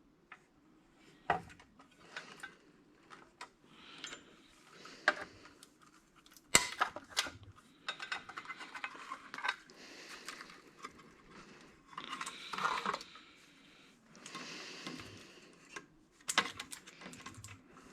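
Metal parts and circuit boards of a console being handled during a teardown: irregular clinks, clanks and scraping rattles, the sharpest clank about six and a half seconds in.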